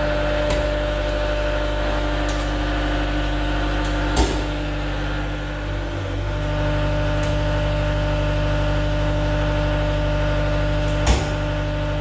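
Diesel engine of a CAT 279D3 compact track loader running at a steady idle, with two sharp metal clunks, one about four seconds in and one near the end.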